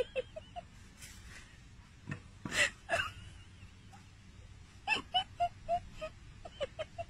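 A dog whining in short, high yelps that come in quick runs, with sharp, breathy barks about two and a half seconds in and again around five seconds.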